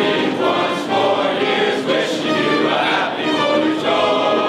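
A large group of midshipmen singing together in chorus, many voices holding sustained notes.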